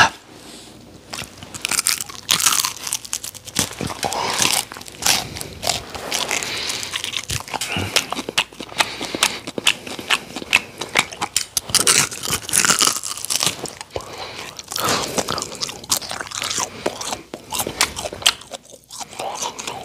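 A man chewing and biting into a charcoal-grilled rabbit leg close to a handheld microphone: irregular crunching and mouth clicks, over and over.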